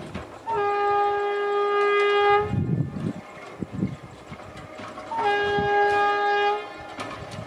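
Indian Railways WAP-7 electric locomotive's air horn giving two long steady blasts, the first about two seconds and the second about a second and a half. A low rumble from the approaching train sits between them.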